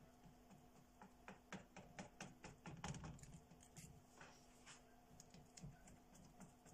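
A knife cutting through a sheet of puff pastry on a metal baking tray: a run of faint, quick, irregular clicks and taps as the blade goes through the dough and touches the tray, starting about a second in.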